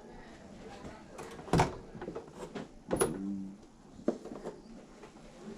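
A few sharp knocks and bumps, the loudest about one and a half seconds in and another about three seconds in, that one followed by a brief low creak.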